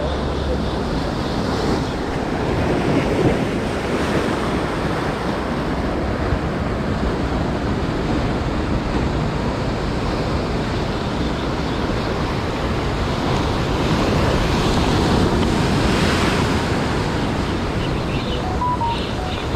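Ocean surf breaking and washing over shoreline rocks, a steady rush of foaming water that swells louder a few seconds in and again past the middle.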